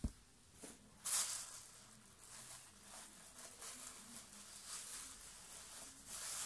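Crinkly wrapping being handled and pulled open by hand, a run of short rustles and crackles, the loudest about a second in. A soft knock at the very start.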